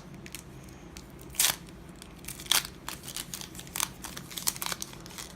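Foil wrapper of a Yu-Gi-Oh booster pack being torn open and crinkled by hand: scattered crinkles and crackles, with two louder sharp ones about one and a half and two and a half seconds in.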